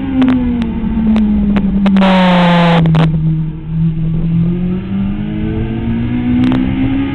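Sport motorcycle engine heard onboard at track speed: the engine note falls as the rider rolls off into a corner, bottoms out about three seconds in, then climbs steadily as the bike accelerates out. A brief higher engine note falls away about two seconds in, and short crackles of noise recur throughout.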